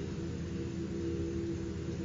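A steady, low droning hum: several held tones sounding together over a deep rumble, without breaks.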